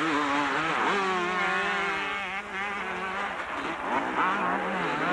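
Several two-stroke motocross bikes racing together, their engines revving up and down so that the pitches rise, fall and overlap.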